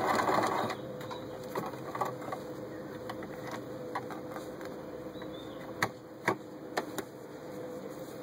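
Janome Super Automatic 348 electric sewing machine stitching fast through fabric, stopping under a second in. After that there is a faint steady hum, with a few sharp clicks about six to seven seconds in.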